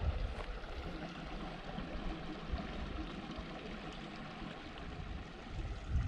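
Steady outdoor rushing noise, like a nearby stream or wind, with an uneven low rumble on the microphone and a few faint ticks.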